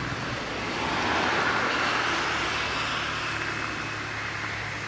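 A motor vehicle passing by: a rushing engine-and-tyre noise that swells to a peak a second or two in and then fades, with a steady low hum underneath.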